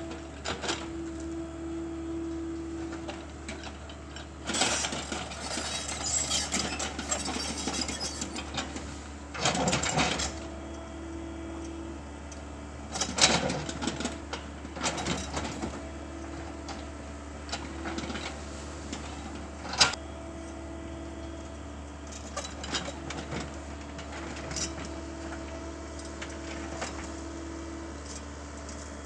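Komatsu hydraulic excavator's diesel engine running steadily, with a hydraulic whine that cuts in and out as the arm and bucket work. Over it come stretches of scraping and crunching as the bucket tears through soil and tree roots, and a few sharp knocks, the loudest about 13 and 20 seconds in.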